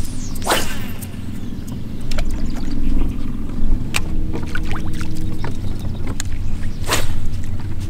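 Steady low hum of a bass boat's motor, with two quick swishes of fishing rods being cast, about half a second in and again near the end, and a few light clicks of reel handling.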